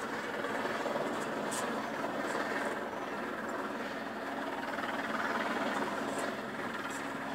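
A helicopter flying at a distance: a steady, even drone that holds at one level.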